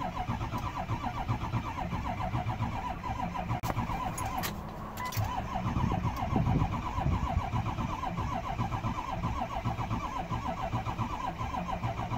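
Diesel pickup engine cranking on the starter motor with a steady, rhythmic churn for a long stretch, never catching. It won't fire because of a fuel supply problem, even with good battery power.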